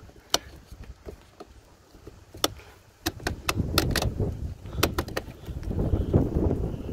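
Sharp plastic clicks and scraping as a gray multi-pin wiring connector is worked into its tight-fitting receptacle, most of them bunched between about three and five seconds in, over low rustling of hands and wires.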